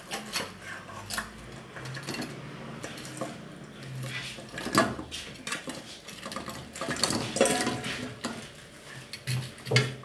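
Kitchen utensils clinking and knocking against dishes and pans at an irregular pace, as ingredients are handled and mixed.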